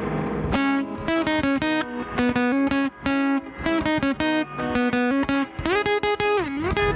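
Background music: a plucked-guitar melody with quick notes and pitch bends.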